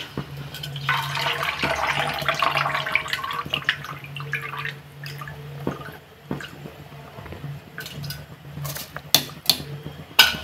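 Water and spices simmering in a pressure cooker, bubbling and sloshing, under a steady low hum. Later come several sharp metal clinks against the pot as soaked rice is tipped into the broth near the end.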